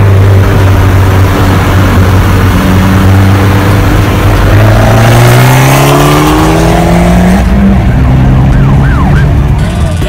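2012 Fiat 500 Abarth's turbocharged 1.4-litre four-cylinder accelerating: its exhaust note climbs steadily in pitch for several seconds, then drops back about three-quarters of the way through and holds steady. Heavy wind and road noise from speed runs underneath.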